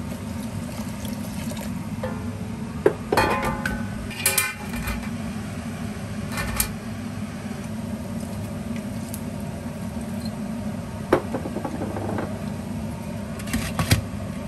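Stainless steel steamer pot and its steamer tier knocking and clinking a handful of times over a steady low hum, with a couple of clinks near the end as a glass pot lid is set on.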